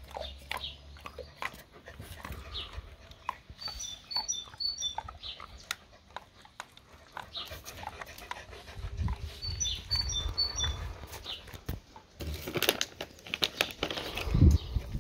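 A dog chewing a duck-and-dental knotted chew treat, with short wet clicks and crunches. Brief high chirps come twice in the background, and near the end a plastic treat bag crinkles louder.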